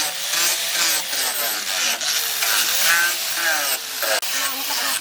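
Hand-held power tool grinding or sanding, a steady hiss with a whine that rises and falls as the tool bites and eases off.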